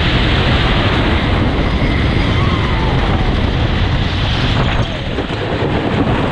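Wooden roller coaster train running at speed, its rumble on the wooden track mixed with heavy wind rushing over an on-ride microphone. A rider's faint falling yell comes in about two and a half seconds in.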